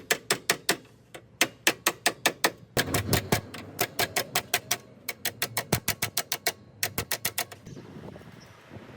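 Runs of sharp, evenly spaced taps, about five a second, with short pauses between the runs; the tapping stops near the end, leaving a faint hiss.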